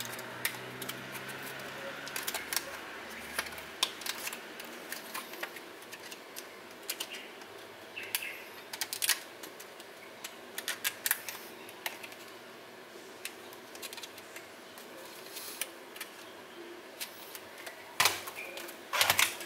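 Irregular crinkling and clicking of clear plastic wrap and small cardboard card boxes being handled on a desk, with a louder cluster of clicks near the end.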